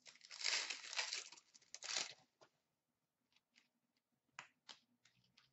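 Foil wrapper of an Upper Deck hockey card pack being torn open, a crinkly tearing for about two seconds, then a few faint ticks.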